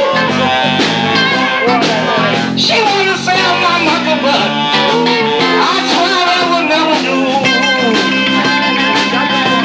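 Live band playing an instrumental passage, with guitar to the fore over a steady beat.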